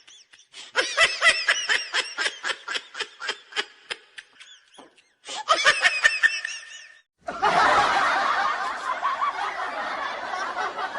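Laughter sound effects: one person's high-pitched laugh in quick rhythmic bursts that slow down and fade, then a second short burst of laughter. About seven seconds in it switches to a group of people laughing together.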